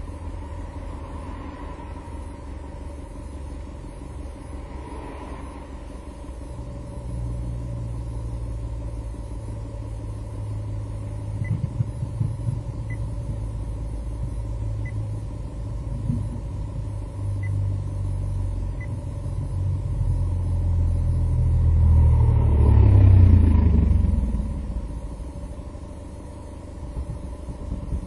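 Low, uneven exhaust rumble from a Nissan 300ZX (Z32) whose exhaust sounds abnormal, heard from inside a car. The Z32's muffler was catching fire at its base. The rumble swells to its loudest a few seconds before the end, with the pitch rising and falling, then dies back.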